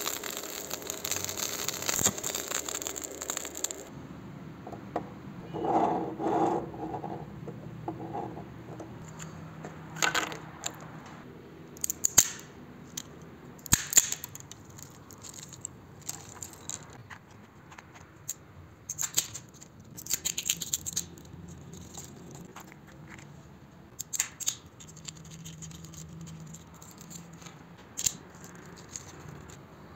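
Electric arc welding crackling and hissing on an old motorcycle chain for about the first four seconds. Then walnut shells crack in a nutcracker made from the chain: a series of sharp cracks every few seconds, some in quick clusters.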